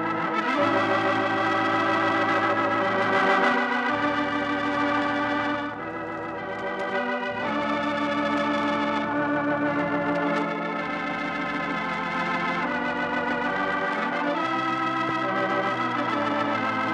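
Organ music playing the programme's closing theme: held, wavering chords that change every second or two, dipping briefly about six seconds in.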